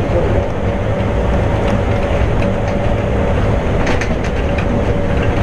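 Running noise of a Bombardier (Adtranz) Innovia APM 100 driverless people mover, heard from inside the car as it travels along its concrete guideway on rubber tyres. A steady low rumble carries a steady whine, with a few clicks about four seconds in.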